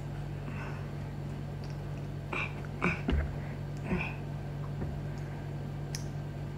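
Small plastic toy being handled and fiddled with: a few soft rubbing sounds and light clicks, one sharper click about six seconds in, over a steady low hum.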